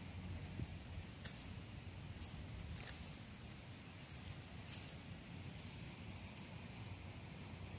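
Quiet outdoor background with a steady low rumble and a few faint, short crackles of dry leaves and twigs, three or so spread through.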